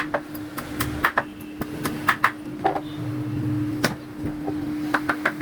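Irregular sharp knocks and clicks of wood and tools being handled at a workbench, several a second, over a steady hum.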